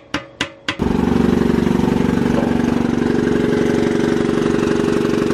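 Three quick hammer blows on metal as the cracked fuel tank is knocked back together. Then, abruptly, an engine idling steadily with a fast even pulse.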